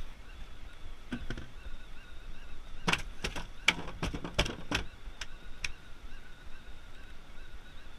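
A quick run of about ten sharp clicks and knocks, starting about three seconds in and lasting under three seconds, over a faint steady background.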